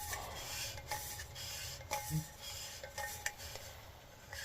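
Scrubbing and rubbing the inside of a reusable coffee cup by hand: a run of quiet scraping strokes with a few light clicks.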